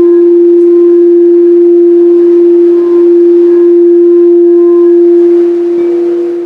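Singing bowl sounding one steady, sustained tone, fading near the end as a second, higher-pitched tone comes in.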